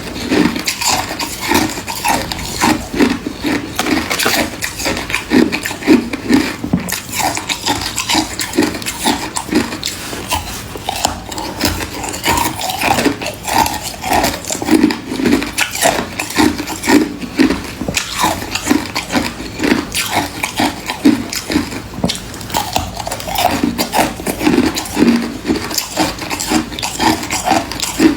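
Close-up mouth sounds of someone biting and chewing freezer frost: a dense, unbroken run of crisp crunches and crackles.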